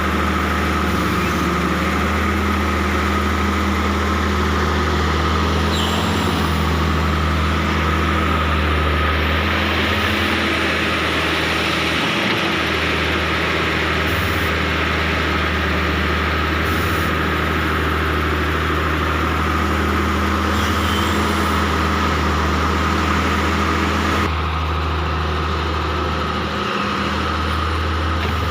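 Hitachi excavator's diesel engine running steadily under work, with a steady high whine over a deep hum. The engine note rises in the middle and eases a few seconds before the end.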